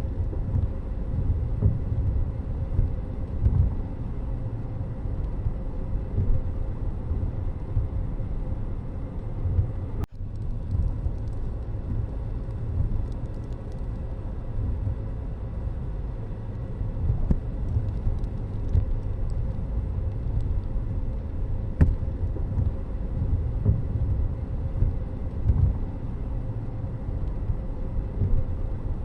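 Steady low rumble of road vehicle noise, as if travelling in traffic, with a brief dropout about ten seconds in.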